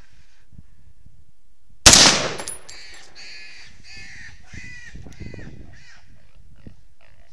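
A single loud gunshot from a hunting gun about two seconds in. It is followed by a run of about seven harsh animal calls, roughly two a second.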